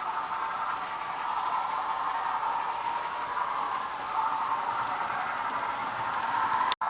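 Hornby A3 'Flying Scotsman' model steam locomotive running, its built-in sound unit giving a steady steam-engine hiss through a small speaker. The sound cuts out completely for an instant near the end.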